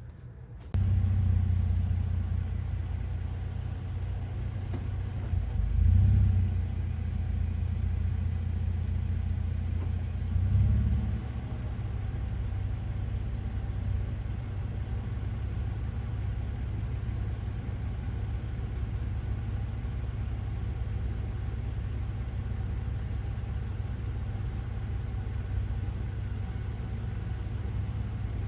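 Toyota Tacoma TRD Off-Road's V6 engine idling with a steady low rumble, which starts suddenly just under a second in. It swells briefly twice, about six and ten seconds in.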